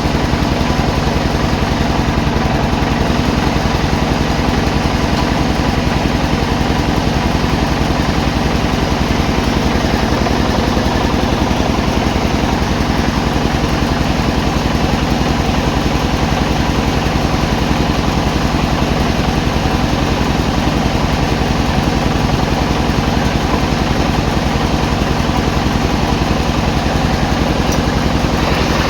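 Sawmill engine running steadily at constant speed, a low, even drone with a rapid fine pulsing.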